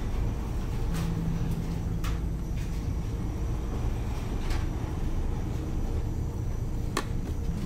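Steady low rumble of a car ferry's engines under way, heard in the onboard dining room, with a few faint sharp clicks scattered through it.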